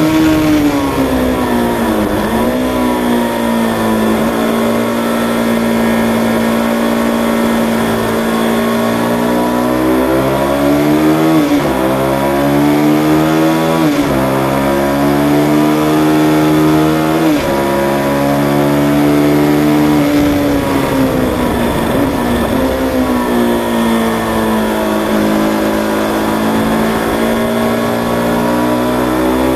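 Aprilia RSV 1000 R's V-twin engine running hard on track, heard from the bike with wind rush. The revs climb and then drop sharply three times in the middle, at upshifts, and sag and recover twice at the slower corners.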